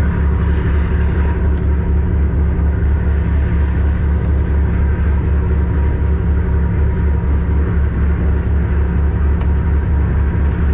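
A tugboat's diesel engine running underway, a steady low, pulsing drone.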